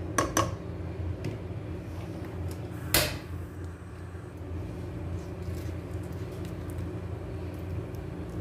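Ghee being spooned into an empty nonstick pot on a gas stove: two light clicks as it goes in, then one sharp knock about three seconds in, over a steady low hum.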